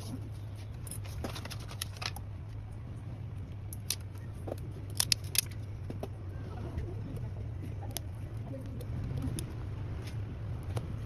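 Small sharp clicks and taps of hand tools working on an iPhone 11, with a close cluster of three about five seconds in, over a steady low hum.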